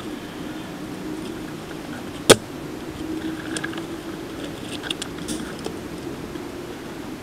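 A single sharp airsoft gun shot about two seconds in, then a few faint ticks and rustles.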